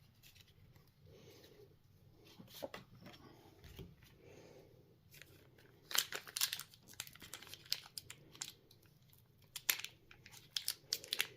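Foil Pokémon booster pack wrapper being handled and torn open, crinkling and tearing. Soft, scattered rustles at first, then louder bursts of crackling about halfway through and again near the end, as the tough wrapper resists opening.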